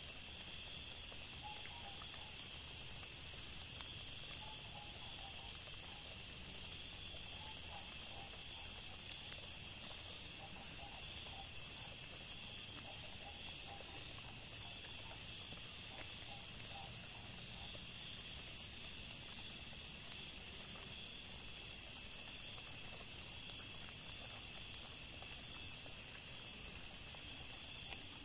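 Night insect chorus: steady high-pitched trilling of many insects at several pitches at once, with a few faint ticks, one sharper about 25 seconds in.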